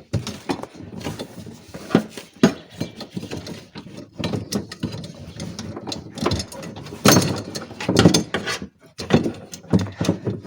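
Metal scissor-type car window regulator being worked out through the door shell: irregular clanks, rattles and scraping of metal on sheet metal, busiest about seven to eight seconds in, as the regulator snags on the motor side.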